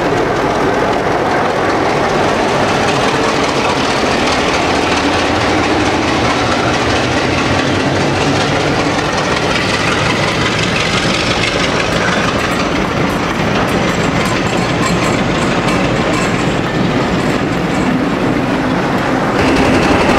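Class 33 diesel locomotive passing close by with a train of coaches, its engine running steadily under the wheel noise, with the wheels clicking over rail joints. About a second before the end the sound changes abruptly and gets a little louder.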